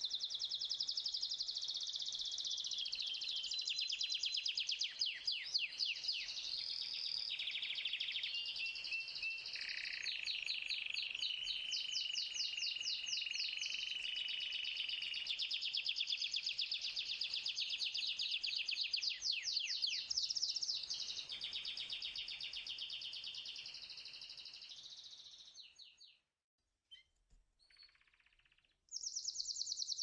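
Canary singing a long continuous song of rapid trills, switching every second or two to a new trill at a different pitch. The song fades out about 25 seconds in, and after a short near-silent gap it starts again just before the end.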